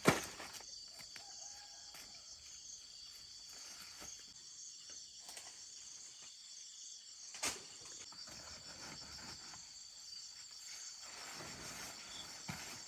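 Steady high-pitched chirring of insects, a cricket-like chorus. A sharp knock comes right at the start and a lighter one about halfway through.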